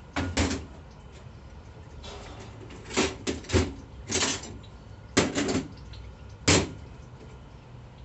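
Metal clinks and knocks of 4L60E transmission parts being handled on a steel workbench, as the clutch drum is stood down and its clutch discs and steel plates are pulled out. About eight short sharp strikes come in small clusters, the loudest two past the middle.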